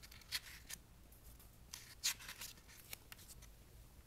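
Sheets of paper being handled and swapped on a desk: several short, faint rustles and scrapes of paper.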